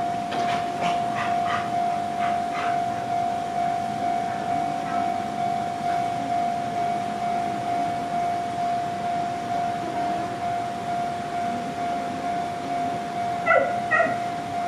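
Japanese railway level-crossing warning alarm ringing: a steady electronic tone with a regular pulsing beat, sounding while the crossing is closed. A dog yips several times in the first few seconds and barks twice near the end.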